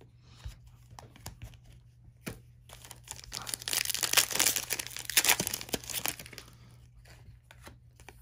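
Trading-card pack wrapper being torn open and crinkled in the hands: a few small rustles and clicks, then a dense stretch of crinkling from about three seconds in to past six seconds, dying down near the end.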